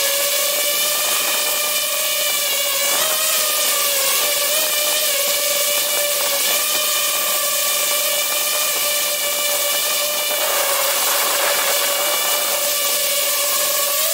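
DJI FPV quadcopter's motors and propellers whining steadily in flight, a high buzzing tone over a strong hiss, its pitch wavering slightly.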